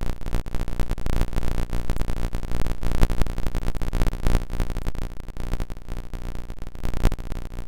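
Wind buffeting the microphone of a motorcycle rolling downhill in neutral, with a steady low engine hum underneath.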